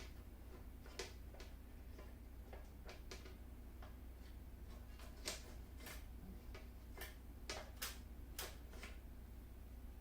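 Irregular light clicks and taps of metal clamps being fitted and tightened on aluminium sheet and profiles, the loudest knocks about five seconds in and again near the end, over a faint steady hum.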